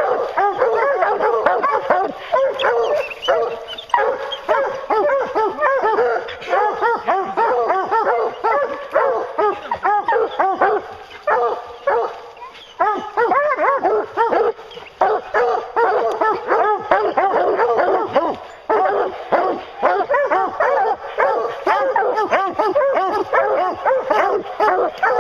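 A pack of English hounds baying and barking treed, many voices overlapping without a break except for a few brief lulls: the sign that the hounds have a bear up the tree.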